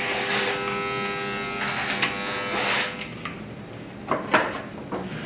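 An electric motor hums steadily with a buzzing tone, stopping a little under three seconds in. Near the end come a few soft scrapes of meringue being scooped by hand into foil pans.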